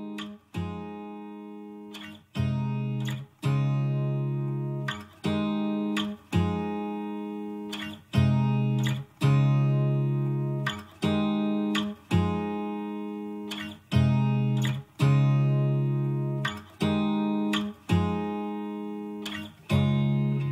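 Background music: an acoustic guitar strumming chords about once a second, each chord ringing out and fading before the next.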